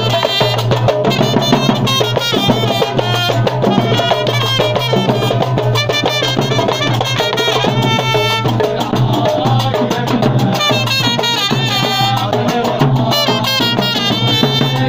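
Live traditional band music: a trumpet plays a melody over hand percussion (a large frame drum, a darbuka and a bass drum) and clashing metal clappers, keeping a steady beat.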